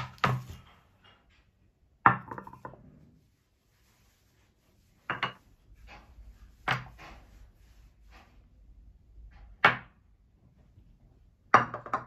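Serving dishes, a wooden cheese board and ceramic bowls, set down one by one on a marble tabletop: six sharp knocks a second or two apart, with faint rustling between.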